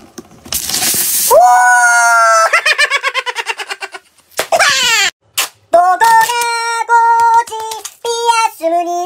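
A loud burst of hiss about half a second in, then a high-pitched laughing, squealing voice that breaks into quick pulses and a falling glide; from about halfway on, short held notes step up and down in pitch like sing-song giggling.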